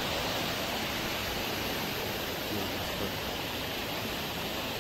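Mountain river rushing over rocks below: a steady, even rush of water.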